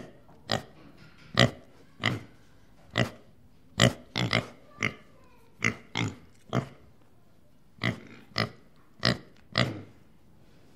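Wild boar grunting while rooting: a string of about fifteen short, separate grunts, one to two a second, with a brief pause about two-thirds of the way through, then stopping shortly before the end.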